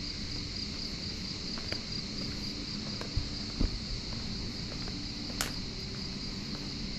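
Crickets chirring in a steady high trill over a low hum, with a few sharp slaps of flip-flop footsteps, the loudest about three and a half seconds in.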